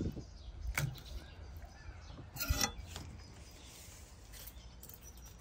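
A large knife cutting raw lamb meat on a wooden cutting board, with a couple of short knocks and scrapes.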